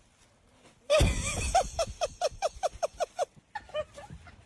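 A person laughing in a quick run of short ha-ha notes, about five a second, starting suddenly about a second in and trailing off near the end.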